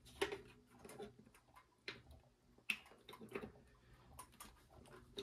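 Faint, irregular light clicks and taps, roughly one every half second to second.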